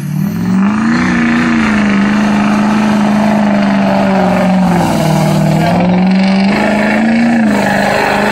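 Lifted Ford Super Duty pickup's turbocharged engine held at high revs under load while its tyres churn through mud. It eases off briefly about halfway through, picks back up, and drops again near the end.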